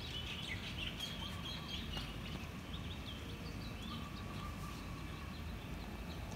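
Small birds chirping in quick, short notes again and again over a steady low background rumble.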